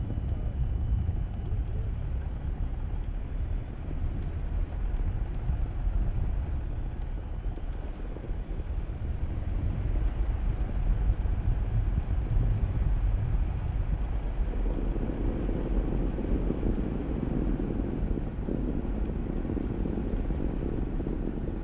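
2023 Jeep Gladiator driving off-road over snow: a steady low rumble of engine and tyres that grows fuller about two-thirds of the way in.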